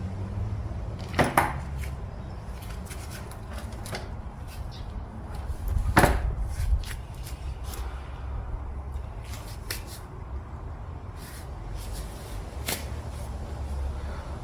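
Parts of a Toyota U760E automatic transmission being handled and set down, with scattered clicks and knocks of metal on metal. A louder knock comes about a second in and another about six seconds in.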